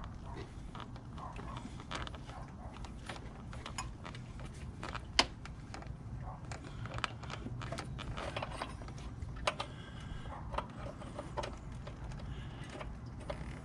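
Hands working rubber heater hoses and clamps off a coolant Y-connector: scattered clicks, taps and creaks, with one sharp click about five seconds in.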